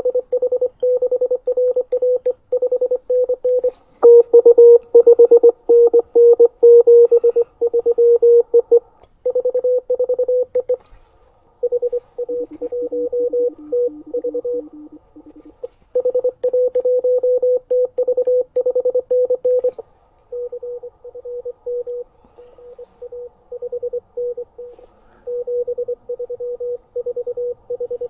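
Morse code (CW) signals from an amateur radio transceiver: a steady mid-pitched tone keyed rapidly in dots and dashes. About four seconds in the keying turns louder with a second, higher tone, and around the middle a lower-pitched signal from another station comes in.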